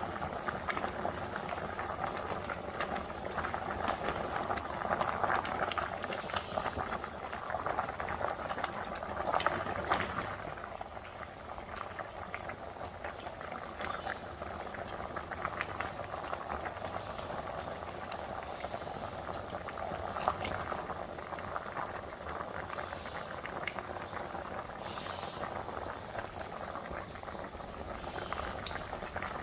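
A pot of liquid boiling, a continuous bubbling with small crackling pops. It is a little louder for about the first ten seconds, then slightly quieter.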